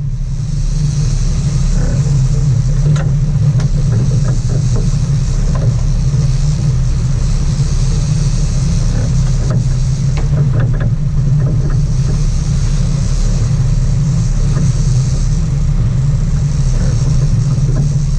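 Sport fishing boat's engine running steadily, a loud low drone with a steady hiss of water and wind over it.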